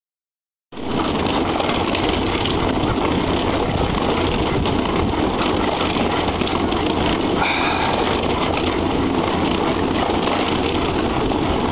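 Wooden slat mill turning steadily under a pit bull's trotting feet: a continuous clatter of the slats rolling. It starts suddenly a little under a second in.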